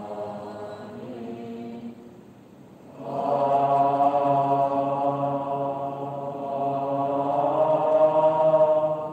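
Slow Buddhist devotional chanting in long, held sung notes. One phrase trails off about two seconds in, and a louder new phrase begins a second later and is held until near the end.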